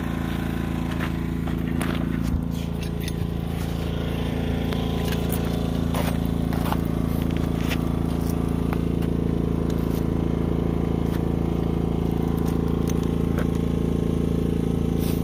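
Small portable inverter generator running steadily with an even engine hum. A few sharp clicks and knocks of handling are heard, around two seconds and six seconds in.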